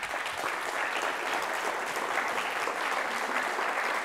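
Conference audience applauding steadily in a lecture hall at the end of a talk.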